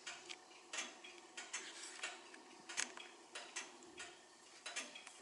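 Faint ticking of an 1830 English grandfather clock's brass eight-day movement, a series of sharp ticks as the pendulum beats.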